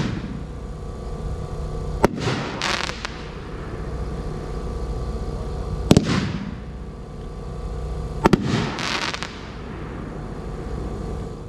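Phantom Fireworks 500-gram aerial cake firing crackling brocade shots: three sharp bangs a few seconds apart, the first and the last each followed by about a second of dense crackling.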